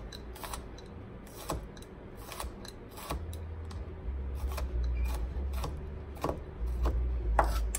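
Chef's knife chopping green bell pepper on a thin plastic cutting mat over a wooden board: irregular sharp knife taps, about one to two a second. A low rumble comes in underneath about three seconds in.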